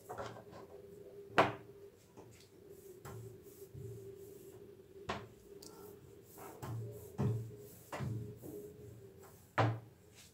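Hands and a metal rod knocking and rubbing on a hard board: several sharp knocks, the loudest about a second in and near the end, over quieter handling sounds. A faint steady hum runs underneath.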